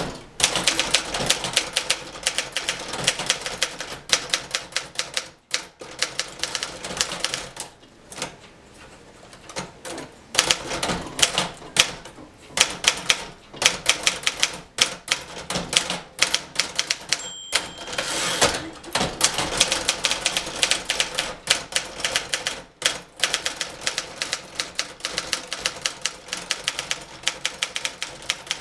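1958 Remington Letter-Riter portable typewriter being touch-typed, a fast, uneven run of key and typebar clacks with short pauses. About 17 seconds in, the margin bell rings once, and then the carriage is returned with a longer rasping sweep before typing resumes.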